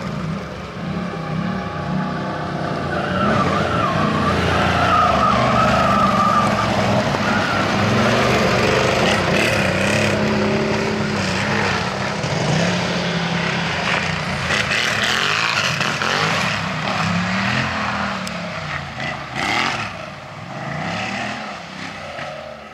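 Quad bike (ATV) engines revving up and down, the pitch rising and falling with the throttle. For a few seconds, starting about three seconds in, a higher-pitched engine note runs over the lower one, and the engine sound grows fainter near the end.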